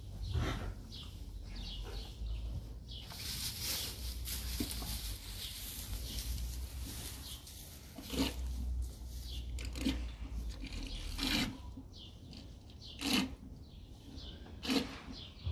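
Straw bedding rustling and crunching in short bouts under a newborn calf's hooves as it steps about, over a low steady hum. The rustles come sharper and more separate in the second half.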